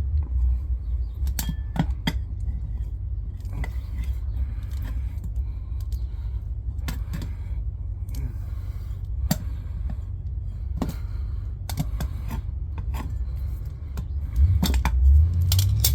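Tire levers working the bead of a mini bike tire over a metal rim: scattered metallic clicks, taps and scrapes over a steady low rumble that grows louder near the end.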